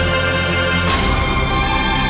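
Malayalam film song music: an instrumental passage of sustained, steady chords. A bright swell across the treble comes about a second in, as the chord changes.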